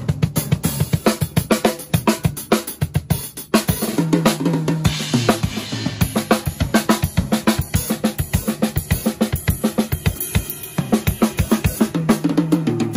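Tama drum kit played live in a fast, busy groove of snare, bass drum, hi-hat and cymbals. Falling-pitch runs down the toms come about four seconds in and again near the end, with a crash cymbal ringing out about five seconds in.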